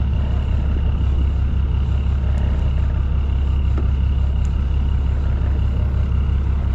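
Fishing boat's engine running at idle: a steady, unchanging low rumble with a faint steady high whine over it.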